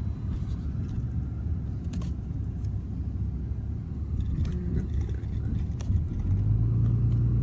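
Steady road and engine rumble heard from inside a moving vehicle's cabin, with a few light clicks and rattles; the low rumble grows a little steadier and stronger near the end.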